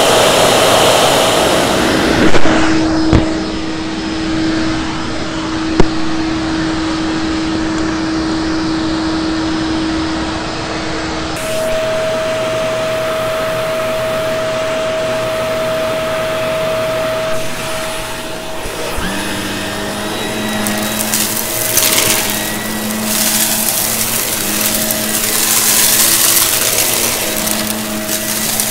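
Vacuum cleaners running in short spliced clips, each a steady motor whine at its own pitch, with a few sharp clicks near the start. From about two-thirds in, the whine wavers between two pitches.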